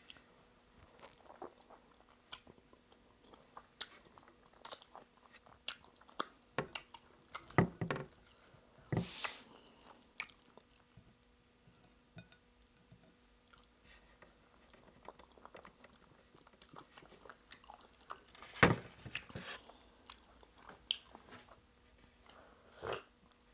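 Close-miked eating sounds as starch and egusi soup are eaten: soft wet chewing, lip smacks and mouth clicks, with a few louder moist smacks or gulps scattered through.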